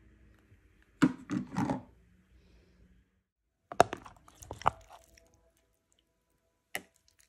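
Handling knocks of the lunch box's lid and a plastic spoon: a quick cluster of three or four clattering knocks about a second in, then a spoon knocking and scraping in a plastic food container a few times, and one sharp click near the end.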